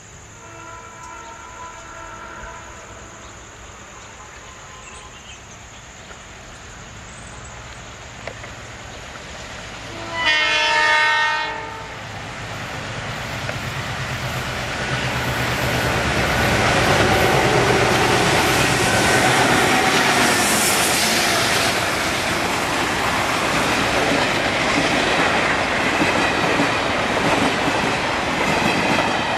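Twin WDM2 ALCO diesel-electric locomotives, each with a 16-cylinder ALCO 251 engine, approach under power. A faint horn sounds in the first few seconds, then one loud horn blast about ten seconds in lasts under two seconds. The engine noise swells as the locomotives pass close, and the rake of parcel vans follows, its wheels clattering over the rail joints.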